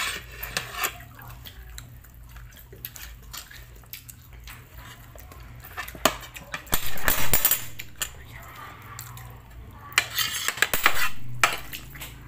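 Close-up eating sounds: chewing and mouth noises, with scattered clicks and clinks of fingers and cutlery on a plate as rice and meat are picked up by hand. There are louder, noisier stretches about seven seconds in and again about ten seconds in.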